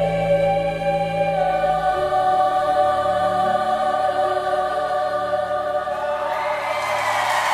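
A choir singing slow, long-held chords in several parts over a sustained low bass. Near the end a broad wash of noise swells up over the final chord.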